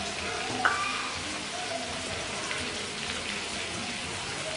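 Cleaver knocking on a wooden chopping board as red chilies are sliced, one sharp knock about a second in and a few fainter ones after, over a steady hiss.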